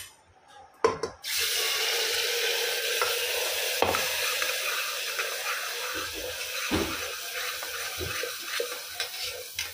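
Ground onion masala paste dropped into hot oil in a pressure cooker, sizzling hard from about a second in and slowly dying down. A few knocks of a steel ladle against the pot.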